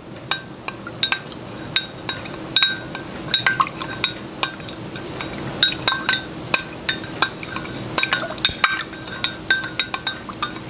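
A spoon stirring in a glass measuring cup, clinking against its sides again and again, about two or three strikes a second with a short glassy ring after each, as water and corn syrup are mixed.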